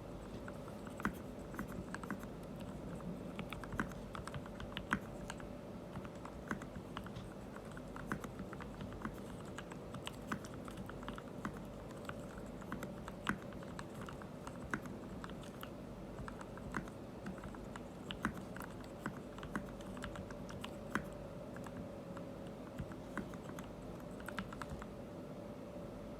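Typing on a Melgeek Mojo68 mechanical keyboard with filmed Gateron Ink V2 Black linear switches: a steady, irregular run of keystroke clacks, some sharper and louder than others.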